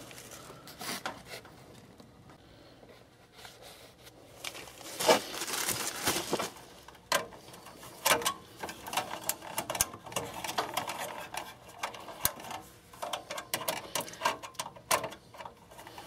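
Hands working with the wiring and spade connectors at a furnace control board: irregular small clicks, taps and rustling, busier from about five seconds in.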